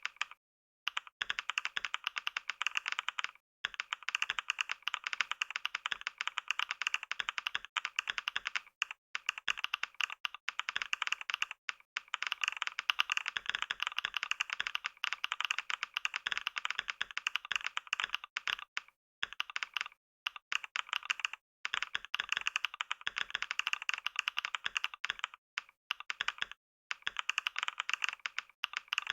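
Computer keyboard being touch-typed fast, at about 88 words per minute, in a dense run of keystroke clicks broken by a few short pauses.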